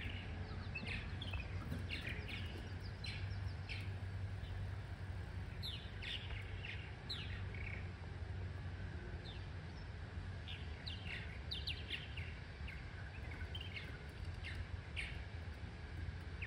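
Purple martins chirping, many short calls coming in quick runs and scattered through, over a low steady rumble.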